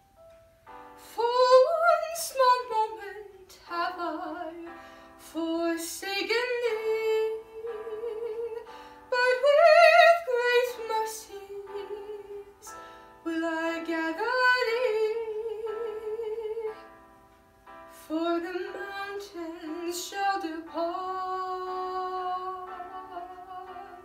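A woman singing a sacred art song in classical style with piano accompaniment, with a wide vibrato on her held notes.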